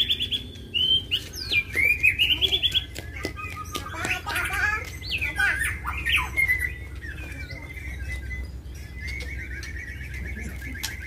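White-rumped shamas (murai batu) singing in agitated, fighting form. Fast rattling trills come near the start, then varied whistled phrases with quick rises and falls, then a steady rattling trill over the last few seconds.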